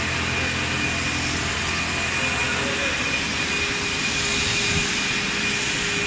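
Motor of cleaning equipment running steadily, a loud even drone with a thin high whine held throughout.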